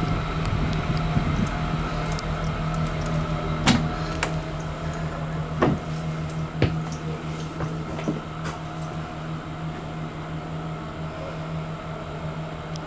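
A steady low machine hum, with a handful of sharp knocks and clicks over it in the first eight seconds or so: footsteps and bumps as someone goes up the motorhome's entry step and moves through the cabin.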